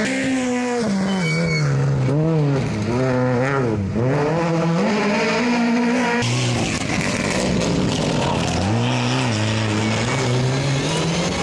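Rally cars passing one after another at speed on a tarmac stage, their engines revving hard and dropping in pitch again and again as the drivers change gear and lift off through the bend.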